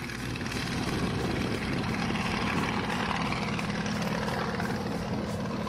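Single-engine propeller aircraft with a ring-shaped wing flying low and climbing away, its engine and propeller running steadily.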